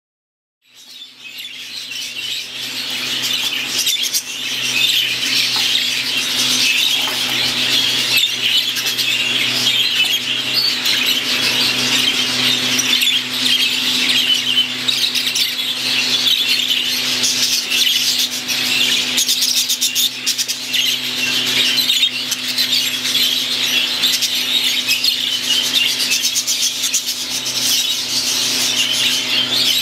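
Many budgerigars chattering and chirping continuously, with a steady low hum underneath. The sound fades in over the first few seconds.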